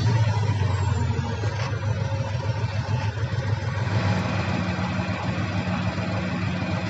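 Heavy-equipment diesel engine running steadily. It is loudest at the start and eases slightly after the first second.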